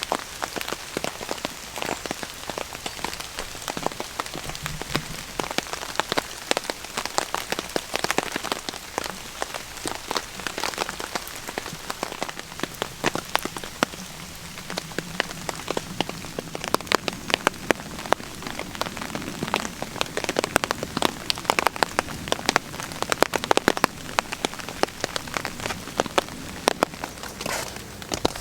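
Heavy rain hitting a tarp shelter overhead: a dense, irregular patter of drops, many of them sharp and loud, over a steady hiss.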